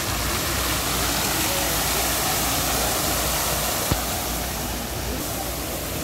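Many fountain jets spraying and splashing down into a pool, making a steady rushing hiss of falling water. There is a single short click about four seconds in.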